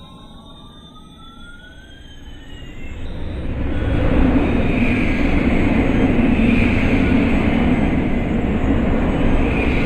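Two electronic tones glide toward each other, one rising and one falling. About three seconds in, a loud, steady jet airliner engine sound effect swells up and keeps running.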